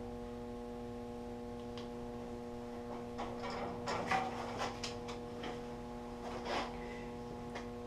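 Faint rustling and small clicks of a sticker being peeled and pressed on by hand, over a steady hum.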